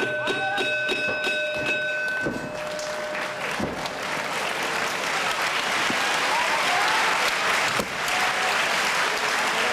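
Wrestling arena crowd clapping in a quick, even rhythm, with a steady held tone over it at first. After a few seconds this swells into loud sustained applause and cheering, with a few voices shouting above it.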